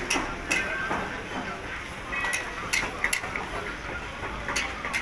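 Metal ladle and tongs clinking and scraping against an iron karahi (wok) as lamb karahi is stirred over a wood fire. The clinks are sharp and irregular, about six in all, over a steady background rumble.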